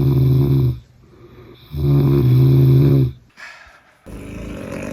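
A person snoring loudly: long, low buzzing snores about two seconds apart, the last one softer.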